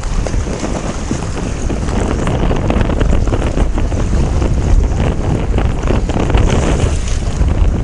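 Wind buffeting the microphone, with water lapping against a small boat's hull.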